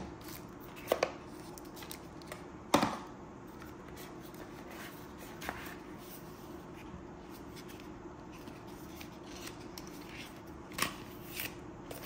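Cardboard packaging handled: scattered light taps, rubs and paper scuffs as a bit sleeve is lifted from its box, with a louder knock about three seconds in and a few more taps near the end, over a faint steady hum.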